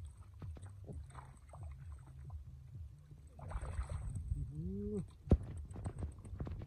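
Hands sloshing and squelching through shallow muddy water and wet mud, with small splashes and clicks. A short pitched sound rises then falls just before five seconds in, and a single sharp knock follows.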